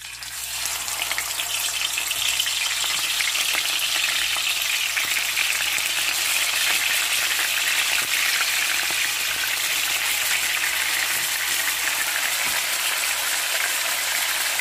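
Whole mackerel frying in hot canola oil in a pan: a steady sizzle that builds up over the first second or two and then holds even.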